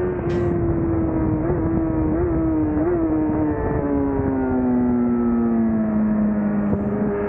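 Sport motorcycle engine heard onboard, its pitch falling steadily as the bike slows into a bend, with three brief blips in the revs in the first half. Near the end the revs jump back up as the throttle opens again.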